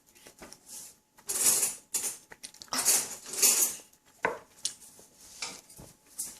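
Plate and utensils being handled while eating: several scraping, rustling stretches and a few light clicks and knocks against the dish.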